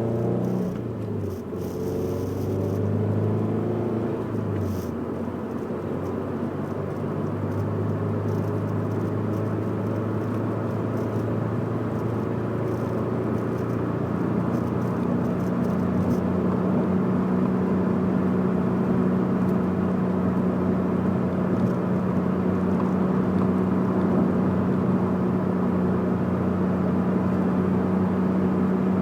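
Scion FR-S's 2.0-litre flat-four boxer engine, breathing through Borla unequal-length headers, an HKS front pipe and a Greddy exhaust, running with the boxer rumble. Its pitch shifts up and down in the first few seconds, then settles into a steady drone that grows stronger and slightly higher about halfway through.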